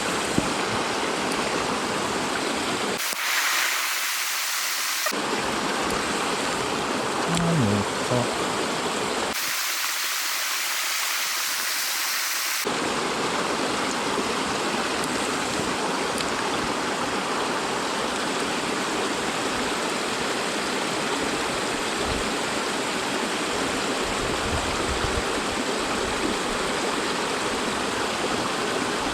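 Mountain stream water rushing as a steady, even noise. Twice, for two or three seconds each, the rush turns thinner and hissier.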